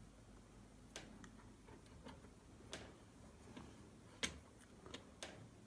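Sparse light clicks and taps of small metal stove parts being handled and a screwdriver tip set into a screw, about seven over the few seconds, the loudest a little over four seconds in.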